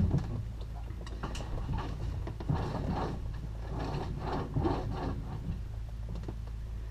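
Small clicks, knocks and rustles of handling inside a closed glider cockpit, over a steady low hum. The knocks bunch up between about two and five seconds in.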